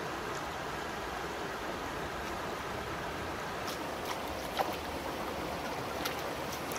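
Shallow river running steadily over rocks. In the second half there are a few short, sharp splashes as bare feet step through the water, the sharpest a little over halfway through.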